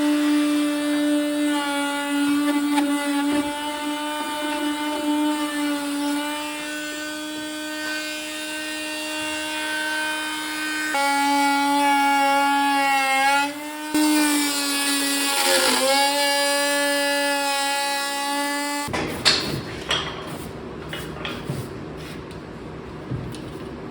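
Corded electric router running with a steady high whine, its pitch sagging briefly and recovering about 15 seconds in. It stops near the end, leaving scattered clicks and knocks.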